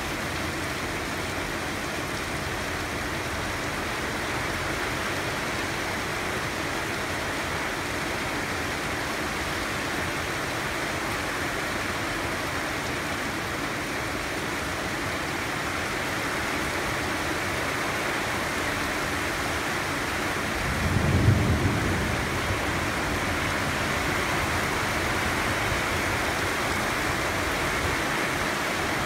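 Steady rain falling, a constant even hiss. About two-thirds of the way through there is a brief low rumble.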